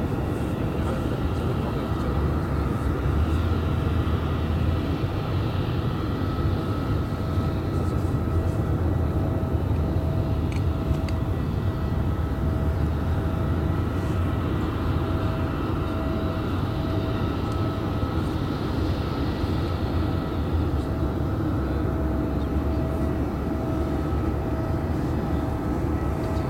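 Boeing 737-800's twin CFM56 jet engines running at low taxi power: a steady whine over a low rumble as the airliner taxis before take-off.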